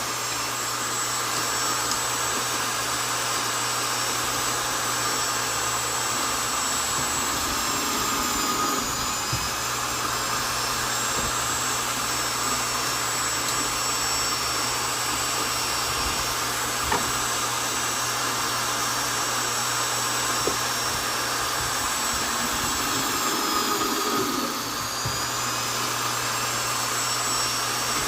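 Vonder electric drill running steadily with a high motor whine while drilling into wood; its pitch dips briefly twice, about a third of the way in and again near the end.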